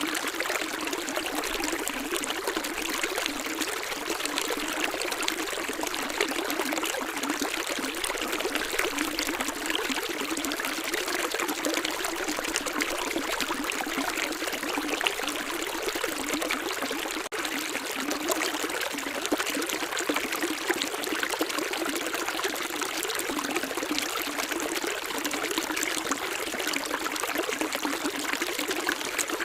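Running water pouring and trickling steadily, as from a small stream, with a momentary break a little past halfway.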